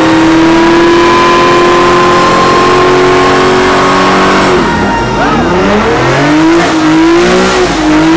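Dodge Challenger's V8 engine doing a burnout, tyres spinning in heavy smoke. The engine is held at a steady high rev for about four and a half seconds, then the revs drop and swing up and down as the throttle is worked.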